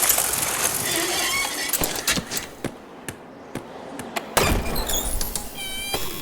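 Busy ambient noise with voices mixed in and scattered sharp clicks. A louder low rumble comes in about four and a half seconds in, and a short high ringing tone sounds near the end.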